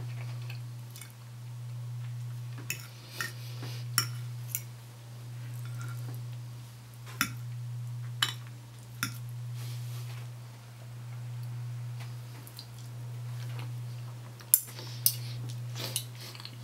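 Knife and fork clinking and scraping on a plate: about ten sharp clicks in clusters, over a steady low hum that swells and fades.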